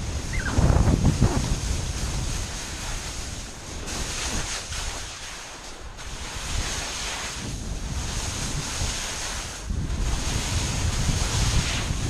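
Wind buffeting the microphone, mixed with skis hissing and scraping over spring snow in a fast downhill run. The rush eases about five seconds in and builds again towards the end.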